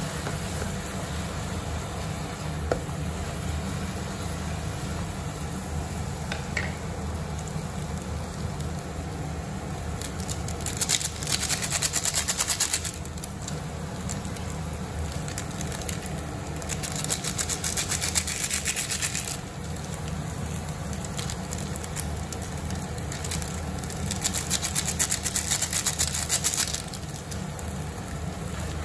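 Instant noodles and egg frying in a non-stick pan: quiet sizzling over a steady low hum, with three louder bursts of crackling hiss, each a few seconds long.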